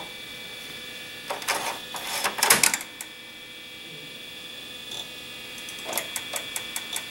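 A 3.5-inch floppy disk being pushed into the Compaq Presario 4160's floppy drive with a short clatter, then a few seconds later the drive reading it, its head stepping in a regular ticking about four times a second. The drive, its heads freshly cleaned, is reading the disk normally again.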